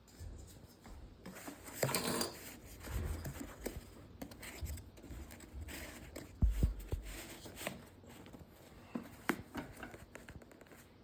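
Hand-work sounds of bookbinding: rubbing, scraping and small knocks as shims are worked under the ties that bind down the book's leather to tighten them, with a dull thump about six and a half seconds in.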